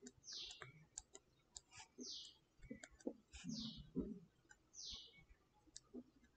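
Faint clicks and taps of a stylus writing on a tablet. A short high chirp, falling in pitch, repeats about every second and a half.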